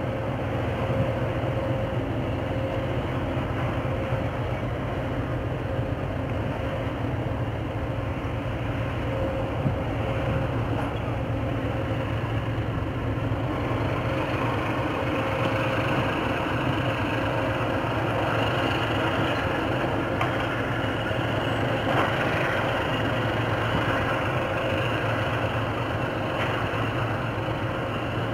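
Steady low drone of a departing purse-seine fishing vessel's diesel engines, with a faint constant whine above it.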